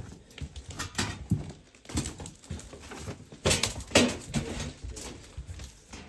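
Footsteps crunching and scuffing over a debris-strewn floor: uneven knocks and scrapes about every half second to a second, loudest in a cluster of crunches around the middle.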